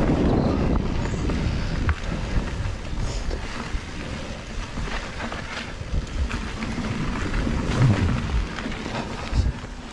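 Mountain bike rolling fast down a dirt trail: a steady rumble of tyres on dirt, with frequent knocks and rattles from the bike over bumps.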